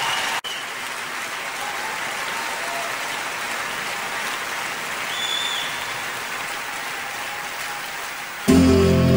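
Audience applauding steadily, with acoustic guitar music starting abruptly near the end.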